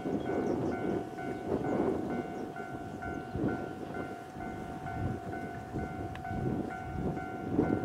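Japanese level crossing's electronic warning bell ringing over and over, about two rings a second, as the KuMoYa 443 series inspection train approaches with a low rumble.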